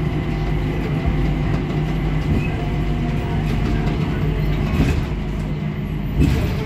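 Singapore Changi Airport Skytrain, a driverless rubber-tyred people mover, running along its guideway, heard from inside the car: a steady low rumble with a constant hum. Two brief knocks come near the end.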